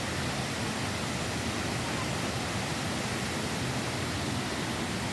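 Steady rush of a waterfall, an even noise with no breaks or distinct events.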